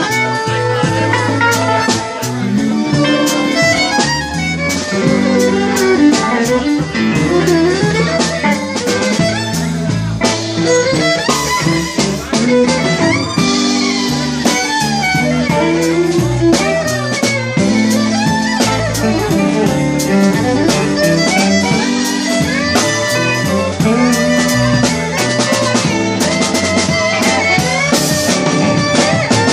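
Live blues band jamming: electric guitars, electric bass and drum kit, with a violin, playing continuously.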